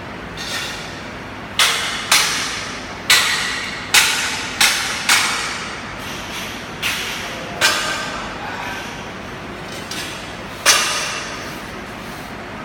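Hammer striking steel: about nine sharp blows at an uneven pace, each ringing briefly, over a steady background noise.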